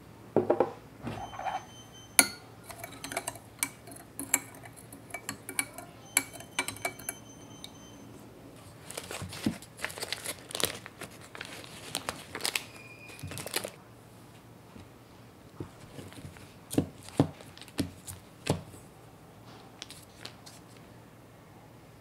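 Clinks from a small glass jug of cold water, with brief high ringing of the glass, over the first several seconds. Then the foil-lined paper wrapper of a block of butter crinkling and tearing as it is peeled open, followed by a few sharp knocks.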